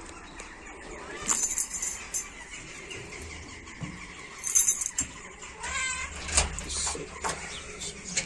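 A domestic cat meows once, about six seconds in, among a few short clicks and rustles.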